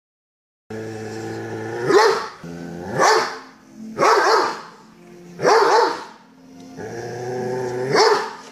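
Doberman growling and barking: low, rumbling growls that each build into a loud bark, five barks about a second apart with pauses between.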